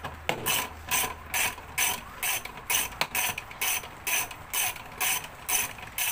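Socket ratchet on an extension with a 10 mm socket, ratcheting a bolt out: short clicking strokes about twice a second.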